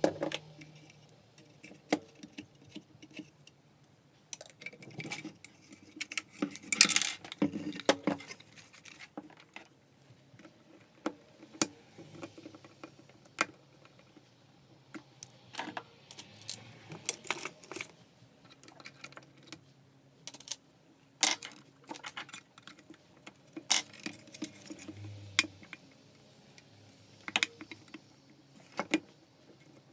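Irregular clicks and clinks of small metal and plastic parts being handled as a Makita 9901 belt sander is taken apart, with a short low hum once near the end.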